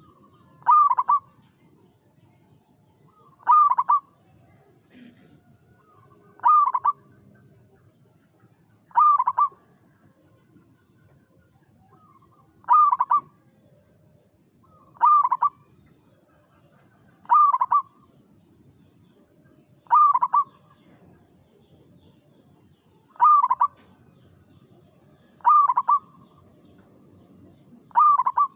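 Zebra dove (perkutut) singing its song, a short staccato cooing phrase repeated about every two and a half seconds. Faint high chirps of small birds sound between the phrases.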